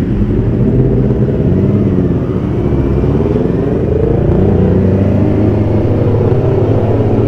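Motorcycle engines pulling away from a green light. The revs rise and drop with a gear change, climb again, then settle to a steady cruise.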